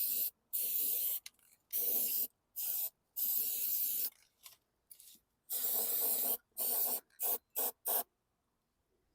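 Aerosol spray-paint can being sprayed in a run of about ten short hissing bursts, some near a second long and the last few quick and brief, ending about a second before the end.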